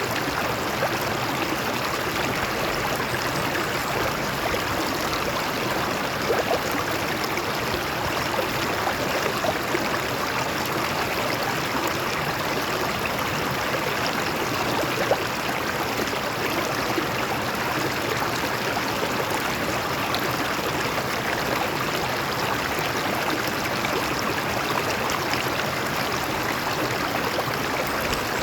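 A stream of water flowing over rocks: a steady, even rushing babble with no pauses.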